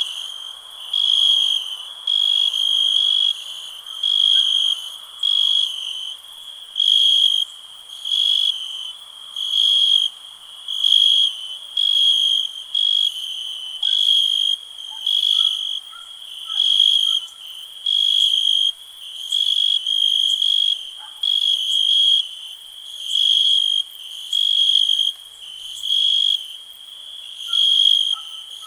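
A cricket chirping in a steady rhythm, one high-pitched trill about every second.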